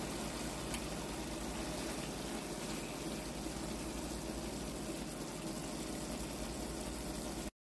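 Mushrooms, bell peppers and onions simmering in sauce in a frying pan, a steady bubbling of liquid that cuts off suddenly near the end.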